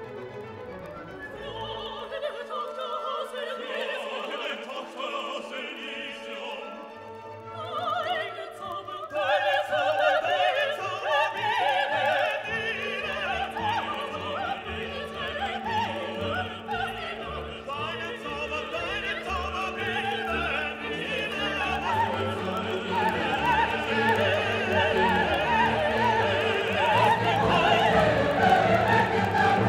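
Classical music: operatic singing over an orchestra. It starts softly and grows louder, with a marked swell about nine seconds in.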